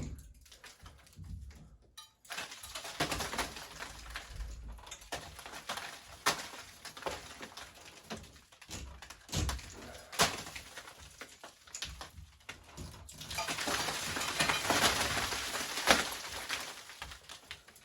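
Scraping and crinkling as wet, flaking drywall paper and joint tape are worked loose from a water-damaged ceiling, with a few sharp clicks; the scraping is densest and loudest near the end.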